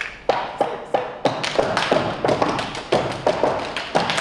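Tap shoes striking a stage floor in a fast run of crisp taps, several a second, with harder accented stamps mixed in.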